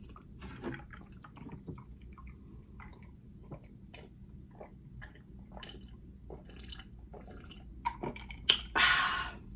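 A person chewing food with small wet smacking and clicking mouth sounds, irregular and close to the microphone. A louder rushing sound lasts about half a second near the end.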